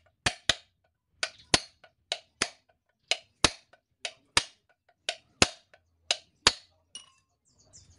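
Hammer blows on a steel punch driving the rivets of a truck's drum-brake shoe against a homemade anvil: sharp metallic strikes in pairs, a lighter tap then a harder blow, about once a second.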